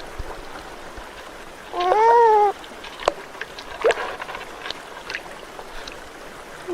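An animal's clear, arched call about two seconds in, over the steady trickle of running water, with scattered sharp clicks.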